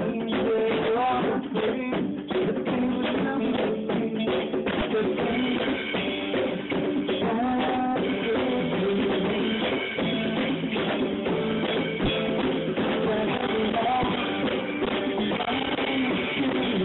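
Band music: a drum kit and guitar playing steadily, with no break.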